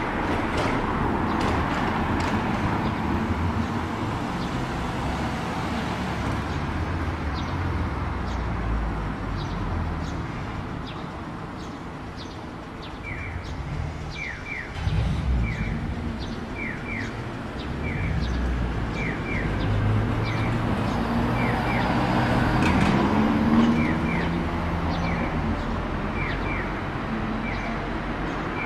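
Street traffic passing, then the electronic bird-like "piyo-piyo" chirp of a Japanese audible pedestrian crossing signal, paired chirps about once a second, starting about halfway through once the light turns red for cars. Near the end a Randen streetcar pulls out of the station, its motor humming louder for a few seconds.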